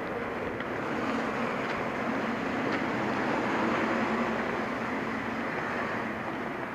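Traffic on a wet city street: a steady hiss of passing vehicles that swells as one goes by about halfway through, then eases off.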